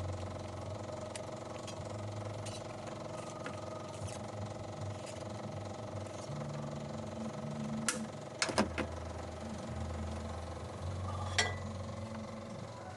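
Suzuki Multicab's carbureted F6A three-cylinder engine running steadily at idle, with a few sharp metallic clicks about eight seconds in and again near the end.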